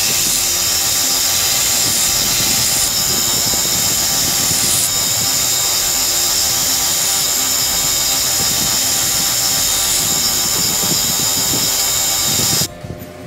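Belt grinder grinding the bevel into a curved steel karambit blade held in a clamp jig: a loud, steady, hissing grind of abrasive belt on steel that cuts off suddenly near the end.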